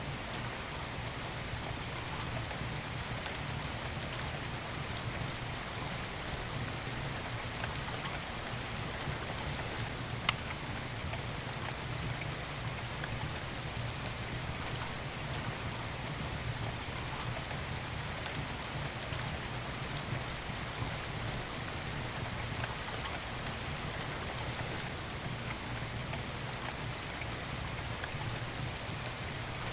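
Steady rain falling, an even hiss, with a single sharp click about ten seconds in.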